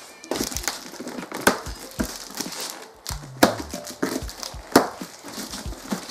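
Cardboard box being opened by hand: clear packing tape peeled off and the flaps pulled apart, with a run of crackling and crinkling and several sharp snaps.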